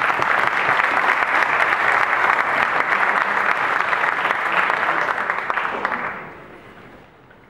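Audience applauding, a dense steady clapping that dies away about six seconds in.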